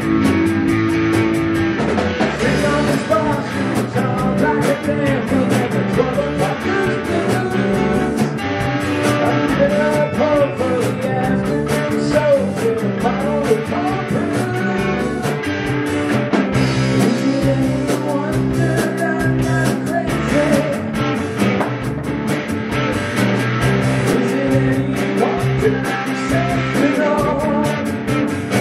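Live rock band playing: electric guitar, bass guitar and drums, with a man singing.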